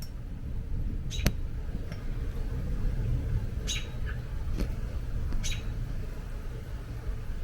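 American robin giving three short, sharp chirps a second or two apart, the persistent calling of a mother robin near her fledgling on the ground. A couple of sharp clicks and a steady low rumble lie beneath.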